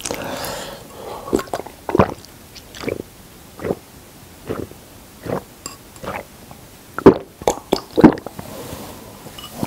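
A person gulping a drink straight from a bowl, close to the microphone: a steady run of swallows a little under a second apart, coming quicker and louder near the end.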